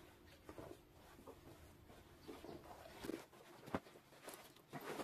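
Faint rustling and rubbing of denim jeans being handled and turned inside out, with a couple of light taps a little past the middle.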